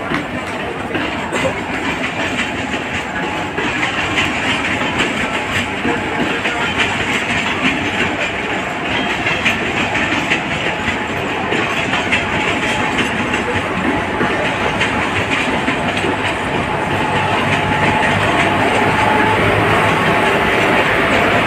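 A passenger train departing behind a WCAM-2 electric locomotive rolls slowly past. Its steel wheels clatter over rail joints and the noise grows gradually louder. In the last few seconds a low steady drone joins in as the coupled diesel locomotive draws level.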